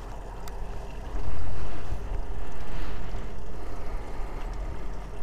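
Wind buffeting the microphone in low rumbling gusts, one starting about a second in and a longer one a moment later, with a faint click about half a second in.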